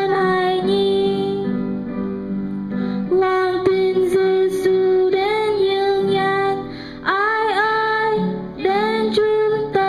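A high female voice singing a song, with held notes and small swoops in pitch, over instrumental accompaniment.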